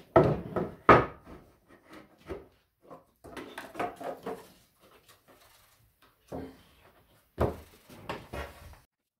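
A thick round of end-grain wood set down and shifted on a slatted wooden workbench, knocking and scraping wood on wood, with a wooden slat being fitted against the table's pegs. The loudest knocks come right at the start and about a second in, with more scraping and knocks later on.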